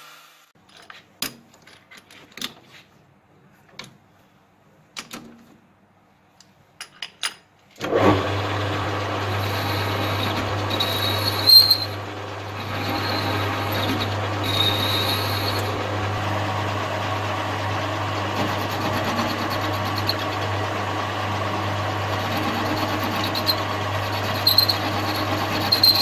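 A few light knocks and clicks of a metal pipe being handled. Then, about eight seconds in, a small metal lathe starts running, turning a steel pipe clamped in its chuck. It gives a steady low hum and cutting noise, with short high-pitched squeaks now and then.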